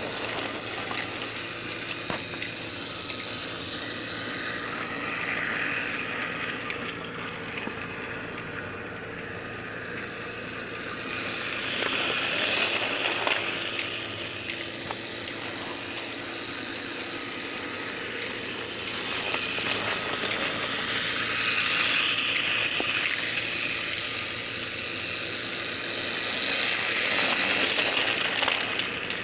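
Battery-powered Plarail toy train (Hurricane pulling Frankie) running on plastic track: a small electric motor whirring and gearing and wheels rattling, getting louder and softer several times as the train passes close and moves away.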